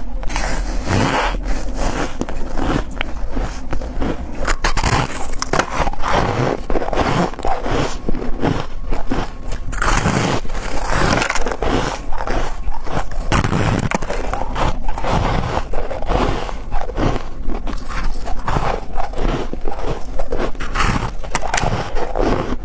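Close-miked bites and chewing of soft, crumbly blue-tinted ice: a steady run of crunchy, squeaky bites one after another.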